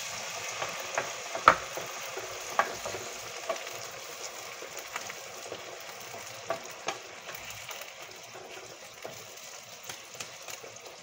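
Beef and water sizzling in a hot frying pan, the hiss slowly fading. A cooking utensil knocks against the pan now and then, loudest about a second and a half in.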